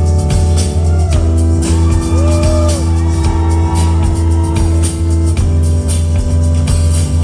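Live rock band playing a slow song: a steady bass line and drums keeping time, with held tones and gliding pitched lines over them.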